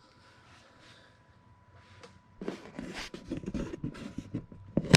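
Plastic engine oil filler cap being twisted and worked loose: a quick run of small clicks and rattles from about halfway in, ending in one sharp click near the end.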